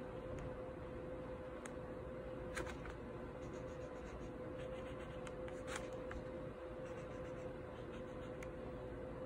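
Pen nib scratching and ticking on paper while a doodle is inked: faint short strokes with a few sharper ticks, over a steady hum.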